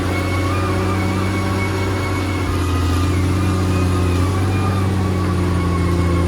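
Diesel engine of a Caterpillar D6R XL bulldozer running steadily, with a thin whine above the engine note. It gets slightly louder about three seconds in.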